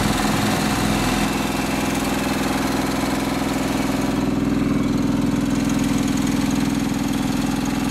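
John Deere 425 riding mower's 20 hp liquid-cooled V-twin engine running. Its pitch wavers briefly in the first second, then it runs steady.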